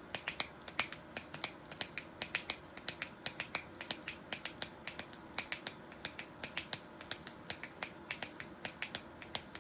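Fingers tapping out a galloping horse's hoofbeats: sharp clicks in quick groups of two or three, repeating about every two-thirds of a second.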